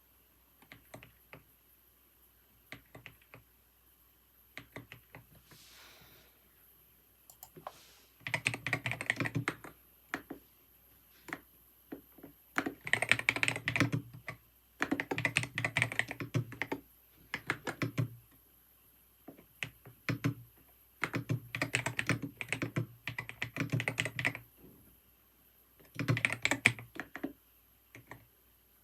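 Computer keyboard typing: a few scattered single key presses at first, then bursts of fast keystrokes, each lasting a second or two, with short pauses between them.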